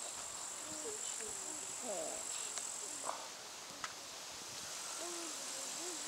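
Insects trilling steadily at a high pitch, pausing for a moment about three seconds in. Faint short calls that rise and fall and a few light ticks sound underneath.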